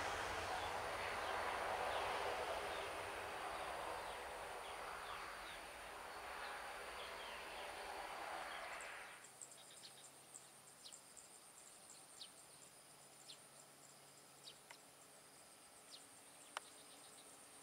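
Twin-engine jet airliner's engines at takeoff thrust: a broad, even rushing roar that slowly fades as the aircraft climbs away, then stops abruptly about nine seconds in. After that, faint insects keep up a steady high chirring with scattered ticks.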